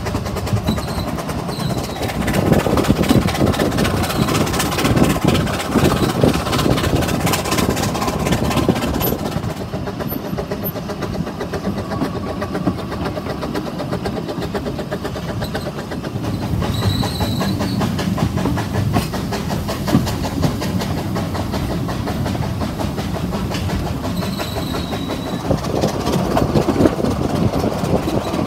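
Narrow-gauge steam train running, heard from a carriage window: wheels rumbling and clattering over the rails as the locomotive works ahead. It swells louder for a few seconds near the start and again near the end.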